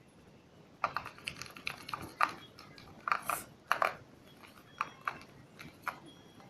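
Slime being squeezed and kneaded by hand: irregular sticky clicks and small wet pops, busiest in the middle and tailing off towards the end.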